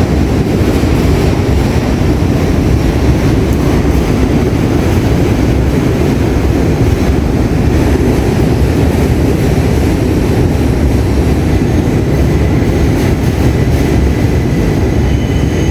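New York City subway train in motion: a steady, loud low rumble of wheels on rail, with a faint high whine coming in near the end.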